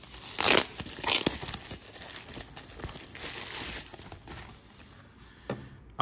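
Plastic bubble wrap crinkling and rustling as hands unwrap a controller from it. There are two louder rustles in the first second and a half, then softer crinkling.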